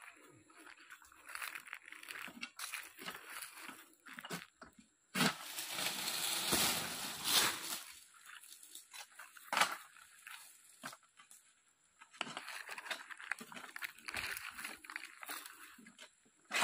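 Long-pole harvesting sickle working into a dura oil palm's crown: repeated irregular scraping, crunching and tearing as the blade is jerked through frond stalks, with rustling of the fronds. A longer, louder rustling, crackling stretch runs from about five to eight seconds in, and there is a sharp crack near ten seconds.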